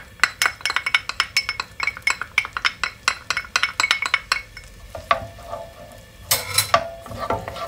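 A utensil clinking rapidly against a pan, about five or six knocks a second for around four seconds, as chopped onion and garlic are stirred through butter and oil. A few looser knocks follow, then a short rushing noise near the end.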